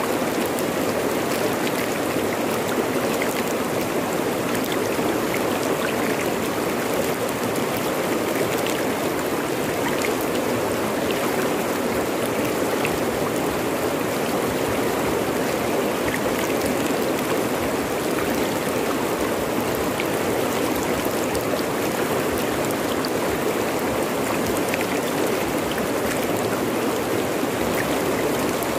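Fast-flowing river running over rocks: a steady, even rush of water.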